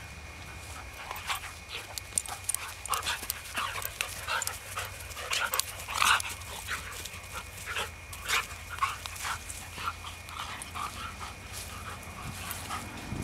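Two standard poodles playing together, making many short, high-pitched whines and yips in irregular bursts, with panting.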